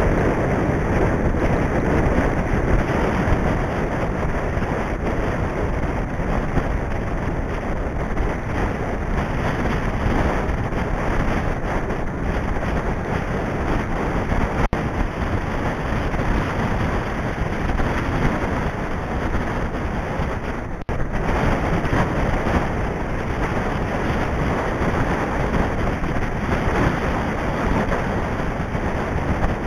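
Steady wind rush and buffeting on a bike-mounted camera's microphone while riding a mountain bike along a tarmac road, with a brief lull about 21 seconds in.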